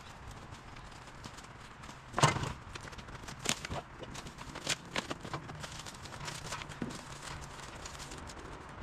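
River stones clacking and knocking against each other as they are picked up and set down by hand: irregular sharp clicks, the loudest knock about two seconds in.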